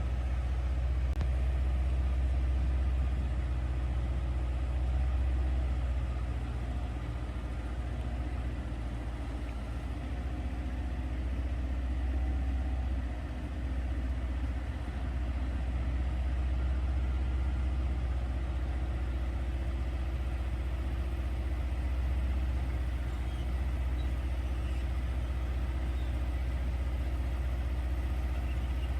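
Construction equipment engine idling steadily with a deep, even hum, dipping briefly about 13 seconds in.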